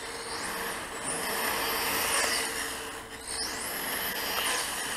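Electric 1/8-scale on-road RC car's motor whining: the high whine rises in pitch as the car accelerates, holds, then falls as it slows, twice over, with a shorter rise near the start.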